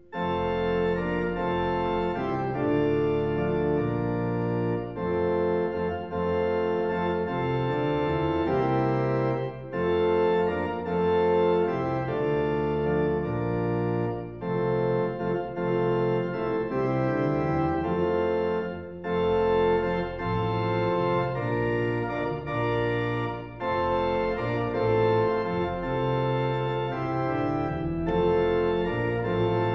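Organ playing slow sustained chords in phrases, with brief breaks between them.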